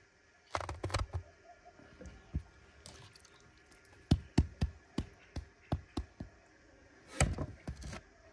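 Hard-crusted flatbread loaves being pulled from the wall of a clay tandoor and handled: brief scrapes, then a quick run of about eight sharp knocks as the loaves are handled and set down on a wooden board, and a short scuffle near the end.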